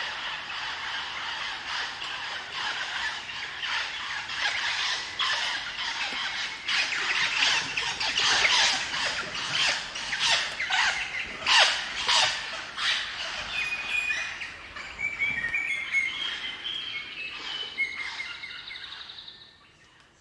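A group of crimson rosellas chattering: a dense run of harsh, squeaky, overlapping calls that thins after about two-thirds of the way into a few clearer whistled song notes, then fades out near the end.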